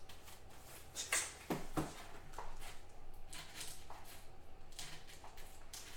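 Light handling noises of trading card packs being gathered: a few short clicks and rustles, the clearest about one to two and a half seconds in, over a faint steady room hum.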